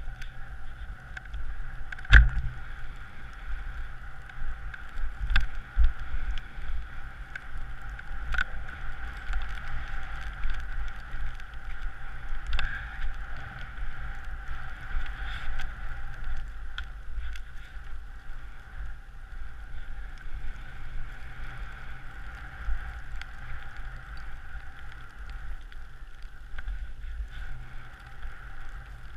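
Skis gliding over snow with wind rumbling on the body-mounted action camera's microphone, and a few sharp knocks, the loudest about two seconds in.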